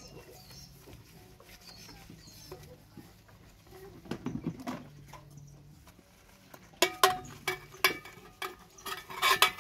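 Metal cookware clattering: a few light knocks in the first half, then a run of sharp knocks that ring on briefly, loudest over the last three seconds.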